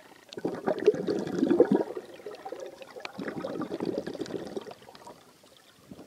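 Water sloshing and gurgling around a camera held underwater, heard as two rough stretches with a quieter gap between and fading near the end.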